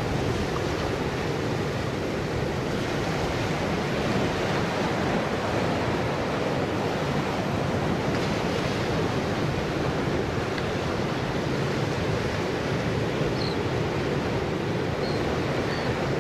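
Ocean surf breaking and washing over rocks as a steady, unbroken wash of noise.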